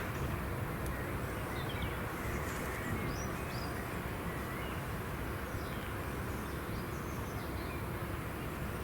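Small birds chirping in short calls over a steady low outdoor rumble.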